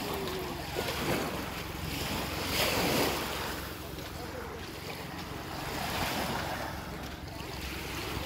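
Surf washing onto a beach in swells every few seconds, with wind buffeting the microphone.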